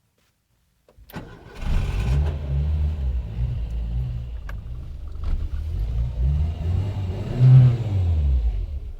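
Renault 5's 1.1-litre four-cylinder engine started: a click and a brief crank about a second in, catching almost at once, then revved up and down several times, the biggest rev near the end, before dropping back toward idle.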